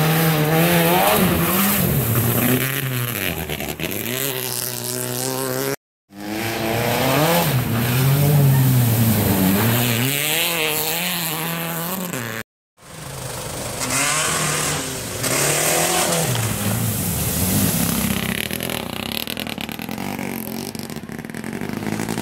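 Rally car engines revving hard, the pitch climbing and dropping again and again with gear changes and lifts off the throttle. The sound cuts out abruptly twice.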